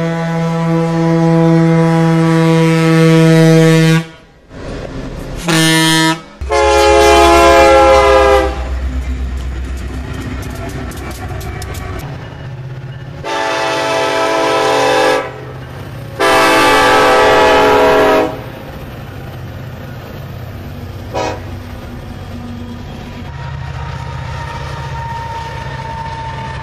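Diesel locomotive horns sounding several times: a long blast, a brief toot and another long blast in the first eight seconds, then two long blasts from Union Pacific freight locomotives about a second apart and a short tap. Between and after the blasts, the steady rumble of a passing freight train.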